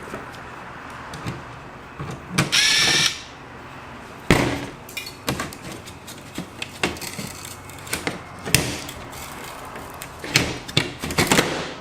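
Laptop disassembly: the last screw coming out, with a short whir about two and a half seconds in. Then scattered clicks and knocks of the laptop's plastic and metal parts being handled as the motherboard is lifted free.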